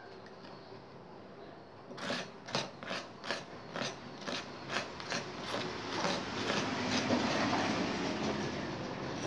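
A small tool scraping and tapping inside a mussel shell as it works mixed Rapid Repair paste. Sharp scrapes come about two a second from about two seconds in, then turn into louder, continuous scraping from about six seconds on.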